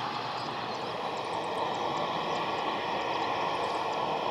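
Steady rushing noise of jet aircraft engines at an airport, even throughout.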